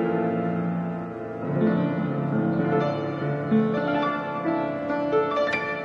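Upright piano improvisation, recorded on a cell phone: held chords ringing, a new lower chord about a second and a half in, then a few brighter single notes struck near the end.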